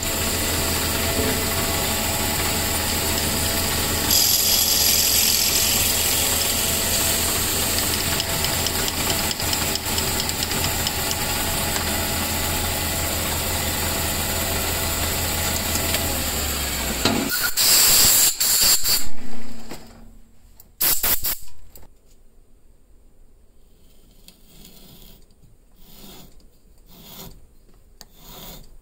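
Lathe running steadily with a hum and hiss as a drill bit bores the joint-pin hole in a spinning wooden pool cue end. About 17 seconds in there is a louder burst, and the lathe stops. Near the end a thread tap is worked into the hole, rasping in short strokes about once a second.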